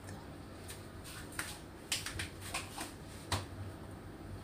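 Scattered light clicks and taps of kitchen utensils and containers being handled, about seven short knocks spread through a few seconds.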